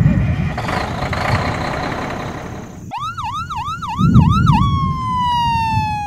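Emergency-vehicle siren: a fast yelp of quick rising-and-falling swoops, then a single long wail sliding slowly down in pitch. Before it comes a rushing noise, and two low booms about four seconds apart are the loudest moments.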